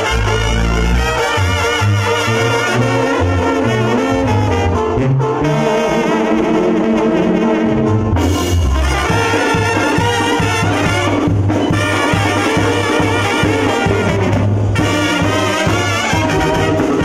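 Live Mexican banda music: trumpets and trombones play the melody over a tuba bass line with a steady beat.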